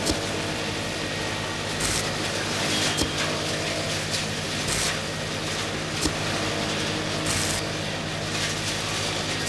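Small battery-powered DC motor driving a miniature conveyor belt: a steady hum with a sharp click about every three seconds and short scraping hisses in between as powdered cement is fed onto the belt.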